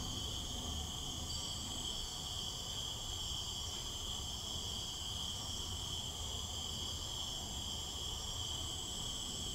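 Insects chirring steadily in a high, unbroken trill.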